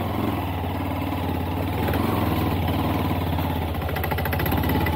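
Honda Monkey's single-cylinder engine running steadily at low revs as the bike crawls slowly over rough ground in first gear.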